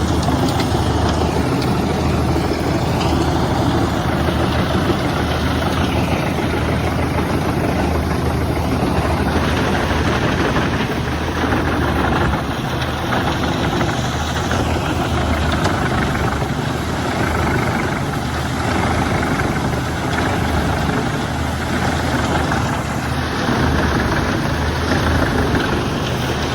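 Fendt 1042 Vario tractor's diesel engine driving an Eschelbach Biber 92 MHA wood chipper, running steadily with a deep, even engine drone.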